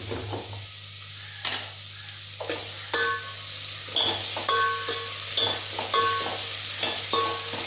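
Sliced onions frying and sizzling in sesame oil in a pan while a spatula stirs them. From about three seconds in, the spatula knocks against the pan at each stroke and the metal rings briefly.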